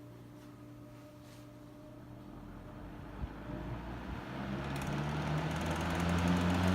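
Superlectric Model 1475 14-inch box fan switched on at high, spinning up from a standstill. The rush of air grows steadily louder, and a motor hum comes in about four seconds in and strengthens.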